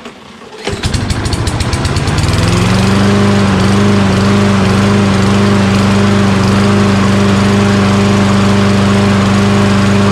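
Toro Recycler lawn mower's single-cylinder Kohler XT675 engine starting up less than a second in, revving up and then running at a steady speed. It starts and runs after its carburetor bowl has been left to refill with fuel, in a mower that stalls from fuel starvation.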